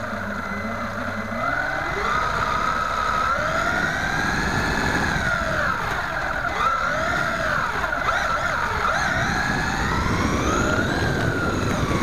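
WLtoys A979 1/18-scale 4WD RC truck's electric motor and gears whining, the pitch rising and falling as the throttle is worked, over a steady rumble of the wheels on a concrete floor, heard from a camera riding on the truck.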